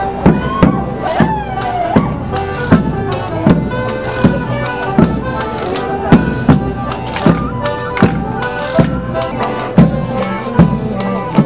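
Morris band playing a traditional folk dance tune on melodeons, with a drum struck on a steady beat.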